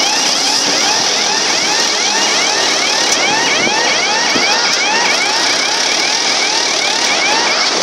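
5500 2WD tractor with a front-loader cotton-grabber bucket, engine running, with a high squeak that rises and falls in pitch, repeating about two to three times a second without a break.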